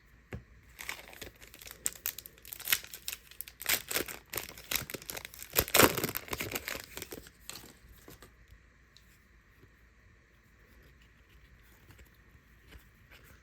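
A Donruss trading-card pack wrapper being torn open and crinkled: a dense crackling run of about six seconds, loudest a little past the middle. It is followed by a few faint light clicks.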